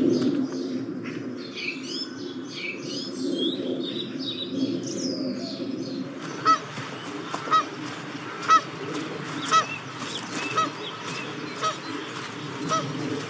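Geese honking, with a songbird singing high above them for the first few seconds; from about six seconds in, one sharp honk repeats roughly once a second.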